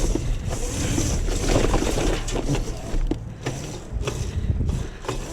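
Wind rumbling on the microphone, with a few short knocks and rustles of handling from about two seconds in.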